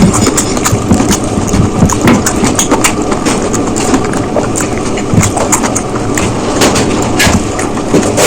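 Close-miked chewing and mouth sounds of someone eating biryani: wet smacking and crunching with many small irregular clicks.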